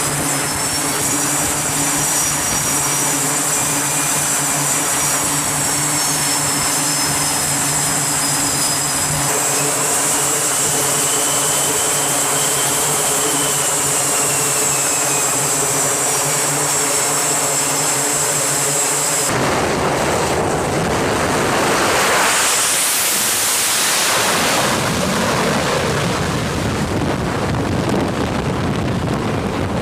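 Aircraft engines on a carrier flight deck: a steady, high jet-turbine whine with several tones for about the first two-thirds. Then an abrupt change to a louder rushing jet noise that swells and sweeps, like a jet passing at power.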